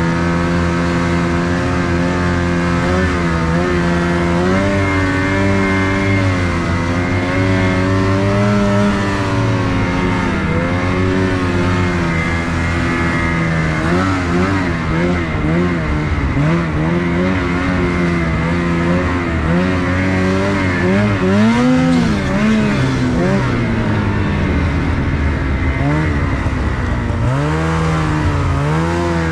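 Snowmobile engine running under way, its pitch rising and falling again and again as the throttle is worked, with the biggest swings past the middle and a dip and climb near the end.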